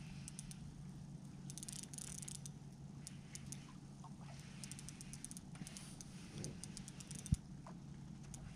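Fishing reel ticking and rattling in short runs as a hooked walleye is played and reeled in, over a steady low hum. One sharp knock about seven seconds in.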